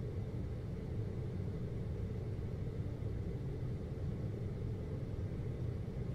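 Steady low rumbling background hum of ambient sound design, even throughout with no distinct events.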